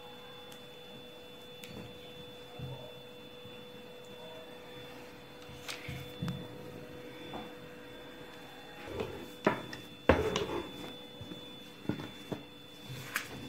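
A faint steady electrical hum runs under quiet handling of dough on a counter. From about nine seconds in come several sharp knocks and thumps, the loudest about ten seconds in, as a wooden rolling pin is set down and worked on the dough.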